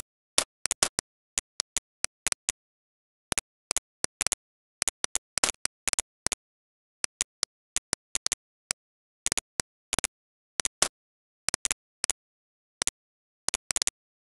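Computer mouse button clicking, single clicks and quick runs of two to four at irregular intervals, with dead silence between. The clicks place the points of a line being drawn in 3D modelling software.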